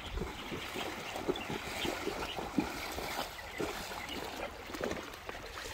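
Horses wading through a shallow river, their legs splashing and sloshing the water in an irregular run of splashes.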